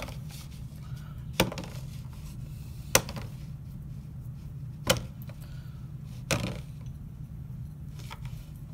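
Small tomatoes being taken out of a bowl on a digital kitchen scale, with five sharp clicks a second or two apart over a steady low hum.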